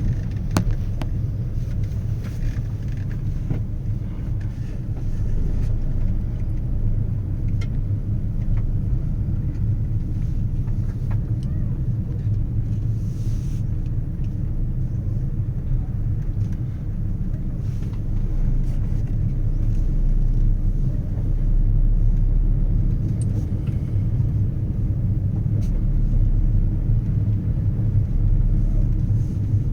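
Steady low rumble of a moving vehicle, swelling somewhat louder past the middle, with a few faint clicks.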